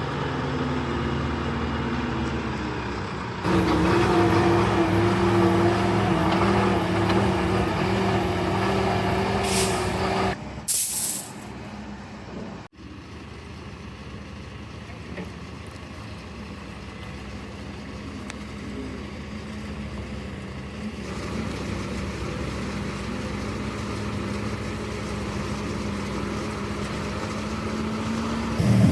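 Concrete mixer truck's diesel engine running, picking up louder and higher at about three and a half seconds in, with two short air-brake hisses near the middle. After a sudden dip the engine runs lower and steady, slowly growing louder toward the end.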